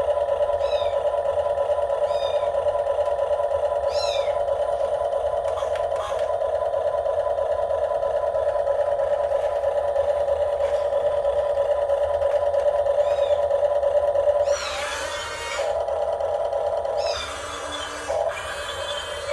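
Steady whine of an RC excavator's small electric drive motor running. About three-quarters of the way through it gives way to a rougher, noisier sound, with faint short chirps recurring every couple of seconds before that.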